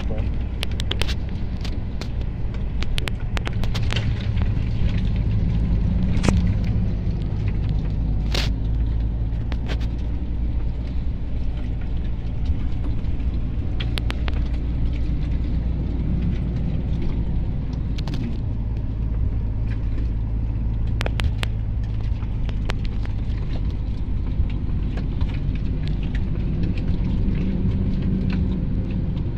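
Truck engine and road rumble heard inside the cab while driving, steady and deep, with occasional sharp clicks.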